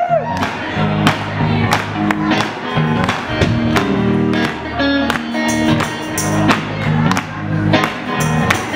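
Live rock band playing an instrumental intro: two electric guitars, electric bass and a drum kit, with drum hits on a steady beat about every 0.7 seconds.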